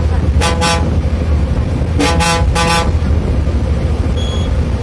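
Bus horn sounding in short toots, two quick ones and then three more, over the steady low drone of the bus engine heard from inside the cabin. A thin high beep starts near the end.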